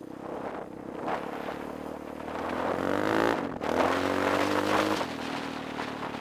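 Yamaha Raptor 700 quad's single-cylinder four-stroke engine under hard throttle while riding. The revs climb in pitch, break off briefly a little over halfway through, climb again, and then ease back near the end.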